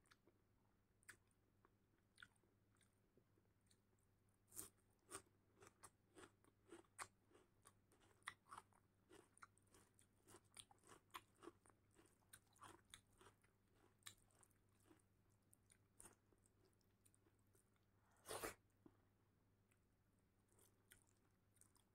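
Faint, close-up chewing and wet mouth clicks from eating rice and dal by hand, with soft squishing of fingers mixing the rice into the dal. Two louder smacks come about four and a half seconds and eighteen and a half seconds in.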